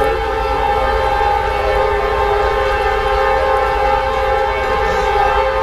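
Diesel locomotive air horn, on the lead CSX SD70MAC of a freight train, sounding one long steady multi-note chord over a low rumble from the train.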